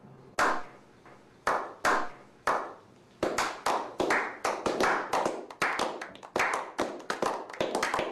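A slow clap from a small group of people: single hand claps about a second apart, then more hands join and it quickens into overlapping applause about three seconds in.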